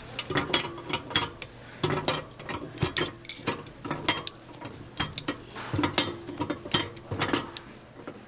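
Cast-iron bungeoppang molds clanking and clicking as they are handled and worked with a metal pick, with many sharp metallic knocks over a low steady hum.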